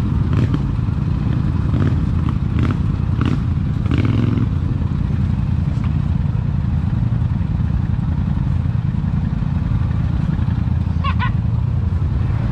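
ATV engine idling, a steady low drone that holds its pitch, with a few light clicks in the first few seconds and a short high wavering sound near the end.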